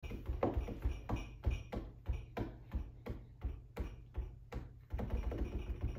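A steady rhythm of short percussive taps, about three a second, each dying away quickly, stopping about five seconds in.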